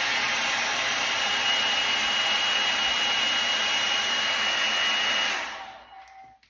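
Handheld hair dryer blowing steadily with a thin whine, then switched off about five seconds in and winding down to silence.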